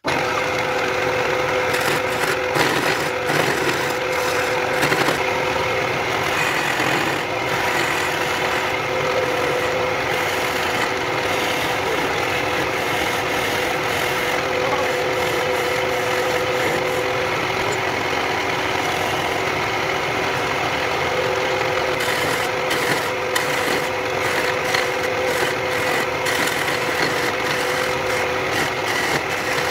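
Wood lathe running with a steady motor hum and whine while a hand-held turning chisel cuts the spinning wooden bench leg, the scraping of the tool on the wood coming and going irregularly.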